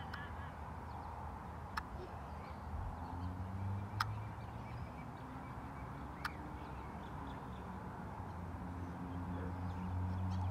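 Outdoor background noise with a low hum that comes and goes, and three sharp clicks about two seconds apart.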